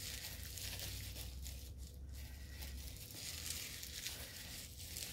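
Wrapping being crinkled and torn by hand as a small package is opened, with a faint, continuous crackle of many small clicks.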